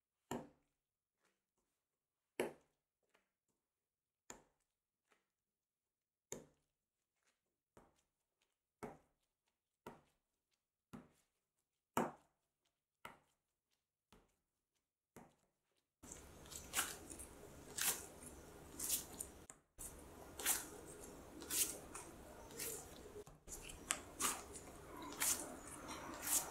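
Soft enriched bread dough slapped down by hand onto a bamboo cutting board: a dull slap every one to two seconds, with quiet between. About two-thirds of the way through it changes to the dough being pushed and kneaded on the board, squishing with many quick knocks over a steady background hiss.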